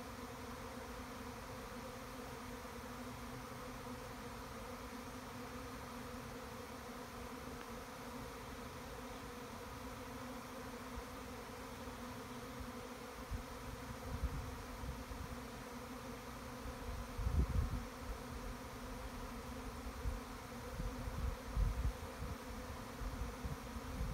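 Honeybee swarm humming steadily as it flies around and settles into a bait hive. A few low rumbles and bumps come through in the second half.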